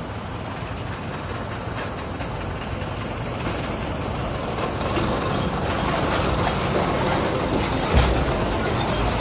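Steady road traffic noise with no horn, growing gradually louder, and a short low thump about eight seconds in.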